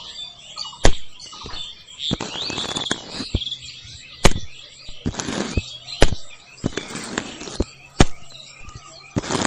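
Green cane sticks being dropped and laid into a toy tractor trolley: sharp knocks as sticks hit the trolley and each other, about four loud ones a couple of seconds apart, among softer clattering and rustling as the pile is handled.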